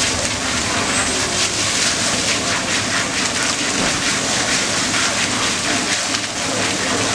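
Water from a garden hose spraying onto an elephant's head and splashing onto its body and the ground below, a steady rush of water.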